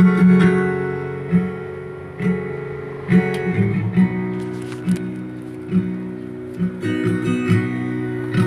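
Acoustic guitar music, chords strummed and plucked about once a second, played back through a DIY dual-channel stereo amplifier built on the TDA2003 chip and its speakers.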